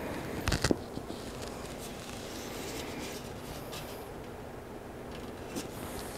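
A short cluster of light metallic clicks about half a second in, and one faint click near the end, as a Shimano RT-MT900 160 mm disc brake rotor is handled and set against a bicycle wheel hub, over a steady low background hum.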